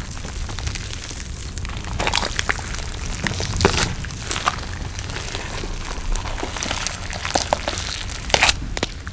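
Close-miked eating sounds: chewing and crunching full of sharp little clicks and crackles, with louder bursts about two seconds in, at about three and a half seconds, and near the end.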